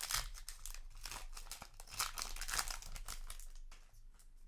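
A Yu-Gi-Oh! booster pack's foil wrapper being torn open and crinkled in the hands, a dense crackling that dies down near the end.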